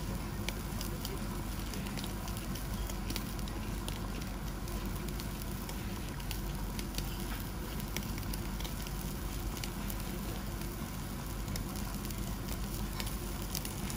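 A thick block of wagyu beef sizzling on a wire-mesh grill over glowing charcoal, with many small scattered crackles and pops from the fat and coals, over a steady low hum.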